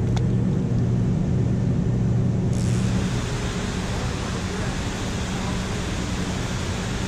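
A steady low hum over faint water noise; about two and a half seconds in, it gives way to the even rush of water pouring over a low concrete dam.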